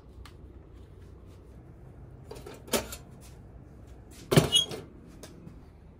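Handling noise on a wooden bench: a couple of light knocks, then a louder clunk about four and a half seconds in, as things are moved and set down.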